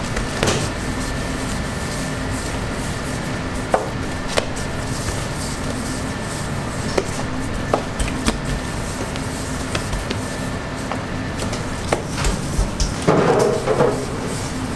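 Bakery kitchen work: scattered knocks and taps of a knife or tools on a work surface, with a louder run of clatter near the end, over a steady hum.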